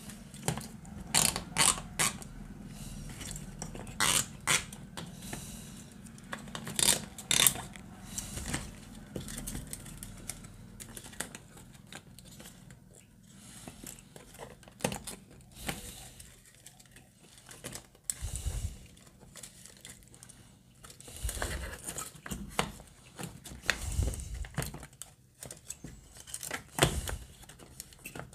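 Nylon cable ties being pulled tight through their locks with short rasping zips, among clicks and knocks of plastic PC cooling-fan frames being handled. The clicks and rasps come in clusters in the first third, and there are a few dull thumps in the second half.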